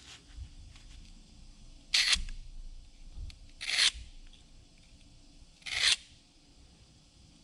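Three short scraping strokes of a hand tool across a workpiece, about two seconds apart.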